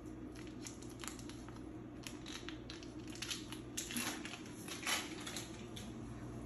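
Foil wrapper of a block of cream cheese crinkling and tearing as it is peeled open by hand: a scatter of faint crackles, the loudest about five seconds in.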